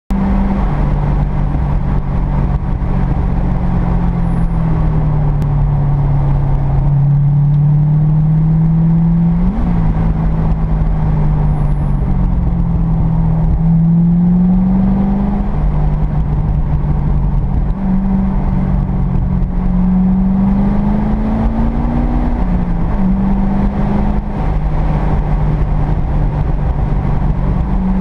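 Car engine and road noise heard from inside the cabin while driving. The engine's pitch rises and falls slowly as the throttle changes, with a quick jump and drop about ten seconds in and again near the end, over a steady low rumble of tyres and wind.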